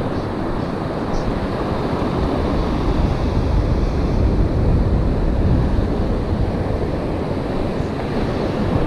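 Ocean surf breaking and washing on a sandy beach, a steady rush, with wind rumbling on the microphone.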